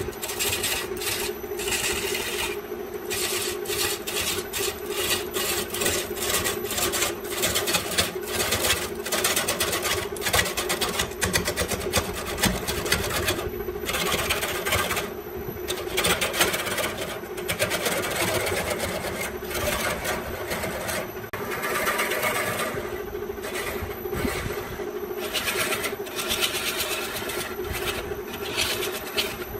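Wood lathe running with a steady motor hum while a hand-held turning chisel cuts a spinning bamboo workpiece, making a rapid, rough scraping chatter that swells and eases as the cut moves along.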